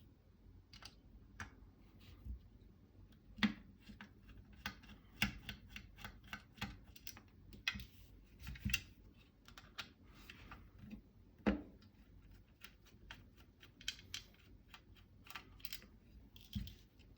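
Faint, irregular small clicks and taps, with a few louder knocks, from a 2.5 mm hex driver backing out the screws of a SCAR 15P's front sling plate bracket and from the small metal parts being handled.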